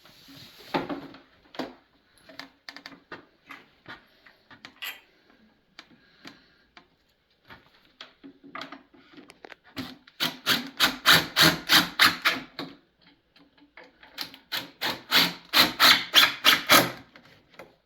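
Wood screws being driven into the kitchen's wooden panels, giving two runs of rapid rasping, squeaking strokes about five a second, after scattered knocks and taps as the parts are handled.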